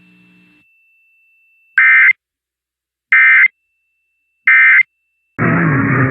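Emergency Alert System end-of-message code: three identical short bursts of warbling SAME digital data tones, each about a third of a second, sent about a second and a third apart, marking the end of the alert. Near the end the station's music cuts in abruptly.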